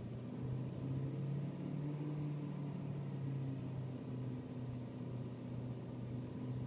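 BMW E39 M5's S62 V8 idling, with a steady low vibrating drone that shifts slightly in pitch: the idle vibration the owner is recording.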